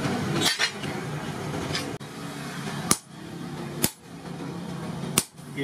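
Hand hammer striking a steel hoe blade, cut from a disc plough, on an anvil: five sharp metallic blows at irregular gaps of about a second, one of them lighter.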